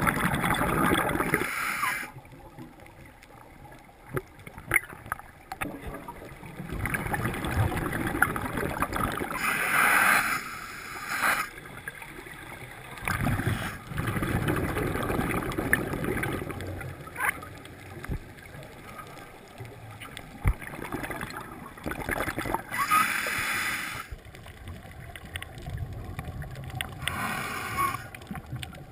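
Scuba diver breathing through a regulator underwater, heard through the camera housing: a hissing inhalation followed by a longer rush of bubbling exhalation, recurring every several seconds.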